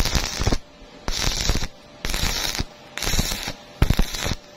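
Stick-welding arc crackling as a flux-coated electrode lays short welds on steel square tubing. It comes in five separate bursts of about half a second each, as the arc is struck and broken again and again.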